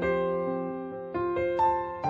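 Background music: a piano-like keyboard playing slow, sustained chords, with new notes struck at the start, about a second in, and again shortly after.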